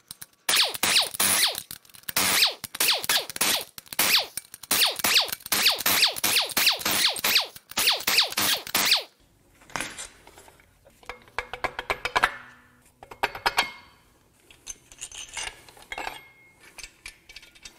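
Impact wrench spinning out already-loosened crankshaft main bearing cap bolts, run in a series of quick bursts for about nine seconds. After that come quieter metal clinks as the bolts and caps are handled.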